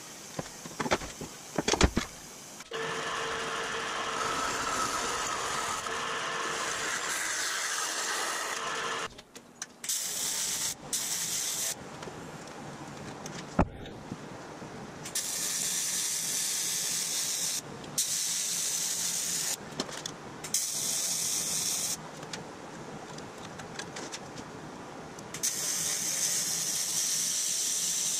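A few clicks of thin aluminum sheet being pressed by hand against a form, then AC TIG welding of the aluminum: the arc runs with a steady hiss, stopping and restarting several times as each bead is laid.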